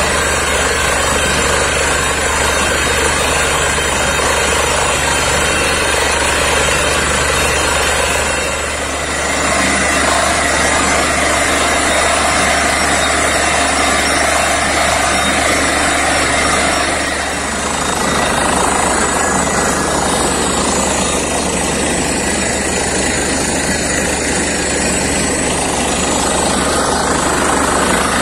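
Truck-mounted borewell drilling rig running, its engine and air compressor making a loud, steady drone.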